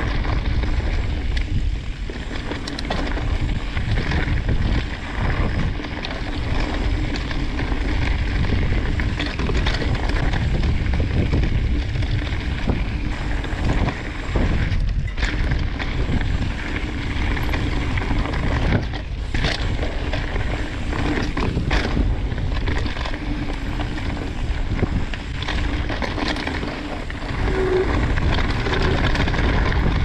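Mountain bike riding down a rocky dirt trail: tyres on dirt and the bike rattling over the bumps, under a steady rumble of wind on the microphone, with a few sharp knocks around the middle.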